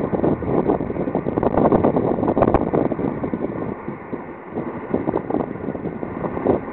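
Gusty wind buffeting the microphone over the sound of a Long Island Rail Road M7 electric commuter train passing.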